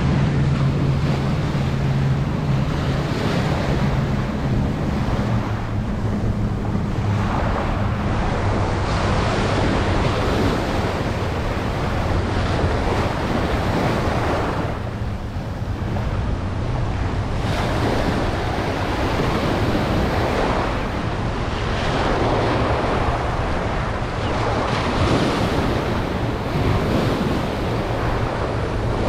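Small waves breaking and washing up a sandy beach close to the microphone, a swell of surf every few seconds, over steady wind noise on the microphone.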